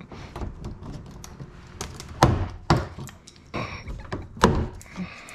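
Plastic retaining clips of a truck's door trim panel snapping loose as a pry tool levers the panel away from the door: several sharp snaps, with faint scraping and knocking between them.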